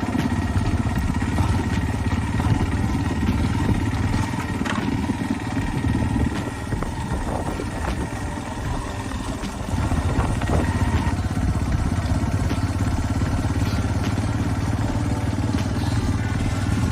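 Steady low rumble of an engine or vehicle running, which cuts off abruptly near the end.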